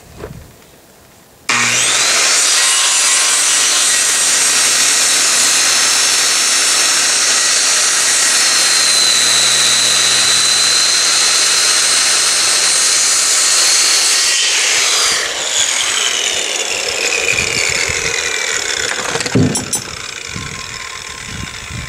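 Handheld circular saw starting up about a second and a half in and cutting steadily through a wooden landscaping timber, with a steady high whine. After about thirteen seconds the trigger is let go and the blade winds down in a falling whine, with a single knock near the end.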